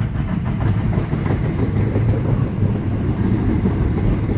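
British Rail Class 456 third-rail electric multiple unit running into the platform. Its wheels and running gear make a steady rumble with faint repeated clicks over the rail joints.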